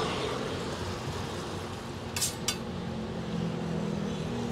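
Steady roadside street noise with the low hum of traffic, and two light metal clinks of cooking utensils a quarter-second apart a little over two seconds in.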